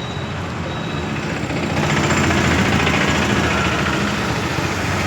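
Roadside traffic noise with a heavy vehicle's engine running close by, growing louder about two seconds in.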